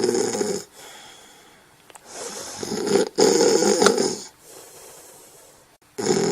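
Snoring, with a loud snore about every four seconds and quieter breathing between. One snore ends just after the start, another runs through the middle, and a third begins near the end.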